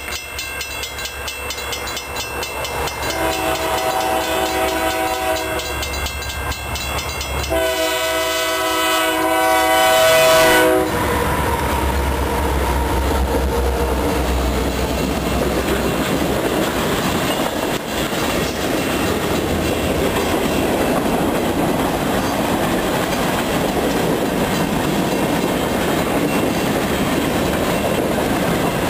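Union Pacific freight train's diesel locomotive horn sounding several blasts, the last one the loudest, about three seconds long and cut off about eleven seconds in. Then the lead locomotives and a long string of freight cars roll past with a steady rumble and clatter of wheels on rail.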